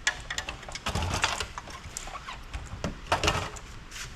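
Irregular clicks, rattles and scrapes of hand tools on metal and circuit-board parts as an amplifier is taken apart.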